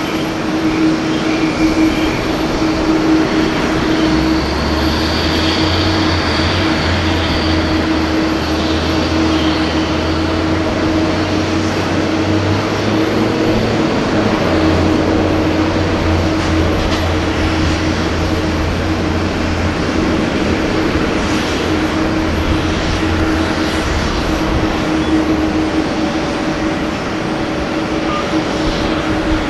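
Boeing 767-300ER airliner on final approach, its jet engines giving a steady rumble with a constant hum. A deeper drone joins about four seconds in and fades out near twenty-four seconds.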